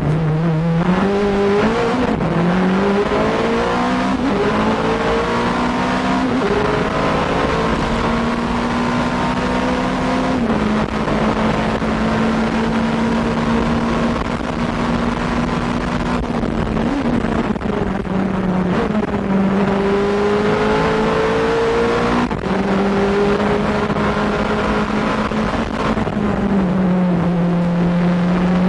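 Nissan R90CK's twin-turbo V8 racing engine at full throttle, climbing up through the gears with a brief break at each shift, then holding a high steady note at top speed. Near the end the note drops as the car slows and downshifts, then climbs again.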